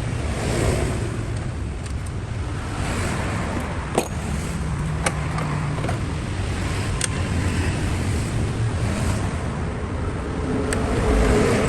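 Toyota Prius petrol engine running steadily, with a few sharp clicks at irregular moments.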